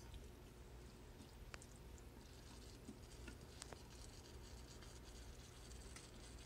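Near silence over a low steady hum: a wooden spatula stirring chopped vegetables in a stainless steel Instant Pot insert, with a couple of soft clicks about a second and a half and three and a half seconds in.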